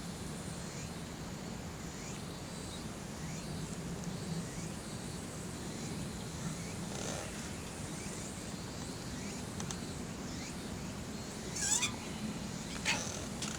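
Steady outdoor background at a campsite with a low hum, broken by two sharp clicks or knocks near the end.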